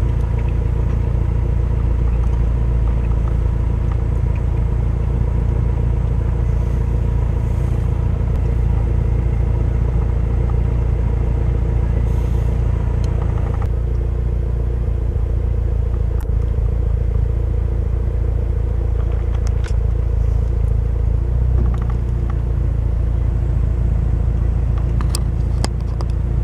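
Steady low rumble inside a car's cabin with the engine running, a steady hum over it, and a few faint clicks in the second half.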